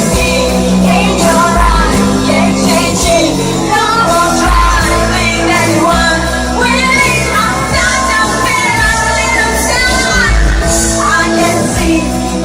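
A female voice singing a pop song over a backing track with a steady bass line.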